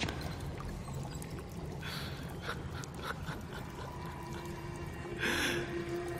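A man's breathy gasps over a low steady rumble, with a longer, louder gasp about five seconds in. A held low note starts near the end.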